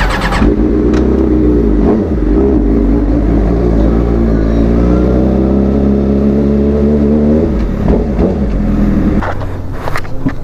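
Suzuki GSX-R 600 inline-four engine running loud through its new aftermarket exhaust as the bike pulls away, its pitch dipping slightly and then climbing gently. The engine sound gives way abruptly to other noise about nine seconds in.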